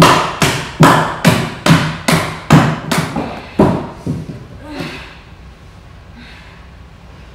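A steady beat of sharp, loud thumps, about two a second, that falters and fades out about four seconds in, leaving quiet room tone.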